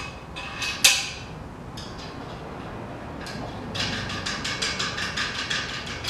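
Steel nuts and bolts on a trailer tongue being handled and threaded on by hand: a sharp metal clink just under a second in, then a quick run of light metallic ticks in the second half as the nuts are spun down the bolt threads.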